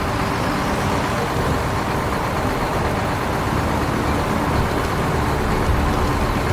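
A vehicle engine running steadily, a continuous low rumble without change.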